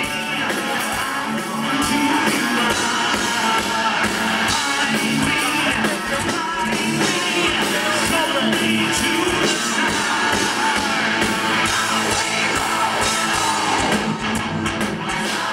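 Live metal band playing loud through a concert PA: distorted electric guitars and drums in a dense, steady wall of sound, heard from within the crowd.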